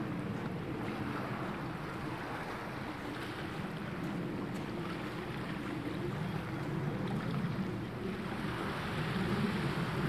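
Small waves washing steadily onto a sandy shore, with wind across the microphone; the wash swells a little near the end.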